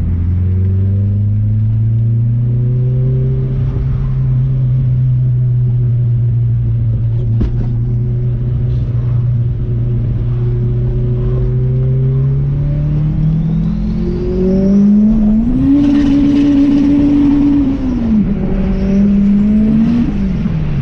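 Turbocharged LS-VTEC four-cylinder engine in a Honda Civic, heard from inside the cabin, running at a steady cruise before a hard pull about twelve seconds in. The engine pitch climbs, holds high for a couple of seconds, drops at a gear change, climbs again and falls sharply near the end as the throttle closes, with a rising turbo whistle during each climb.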